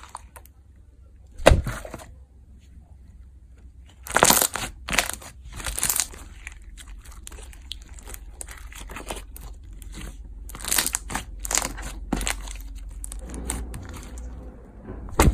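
Pink slime with foam beads being stretched and pressed by hand, giving irregular crackling clicks and pops as the bubbles in it burst, with a few louder pops. A steady low hum runs underneath.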